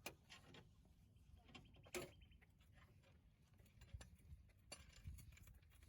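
Car jack being cranked down to lower the car: faint, irregular mechanical clicks and creaks from the jack's screw and handle.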